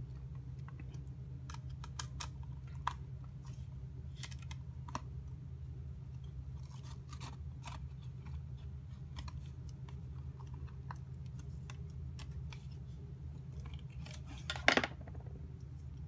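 Small clicks and scrapes of hands fitting a relay module onto a perforated circuit board with small screws, over a steady low hum, with one louder click near the end.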